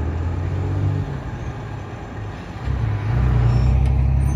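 Diesel locomotive at the head of a freight train, a steady low rumble as it approaches, growing louder about three seconds in.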